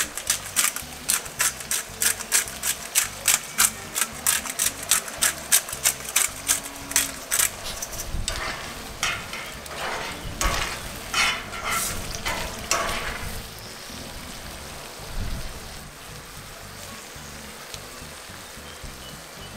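Thick tomato sauce bubbling hard in a cast-iron skillet, popping about four times a second. About eight seconds in, a metal spoon stirs through it and scrapes the pan for several seconds, then the sauce settles to a quiet simmer.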